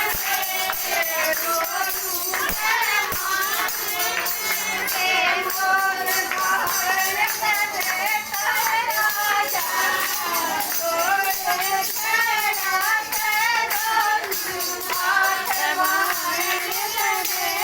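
Devotional bhajan music: a singer's wavering, ornamented melody over a continuous jingling tambourine.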